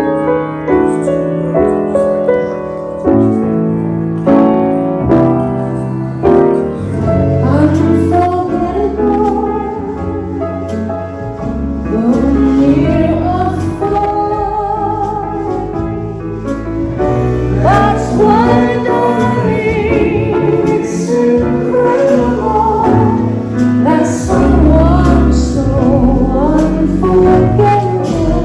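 A female vocalist singing with piano accompaniment: piano alone at first, with the voice coming in about eight seconds in and holding long notes with vibrato.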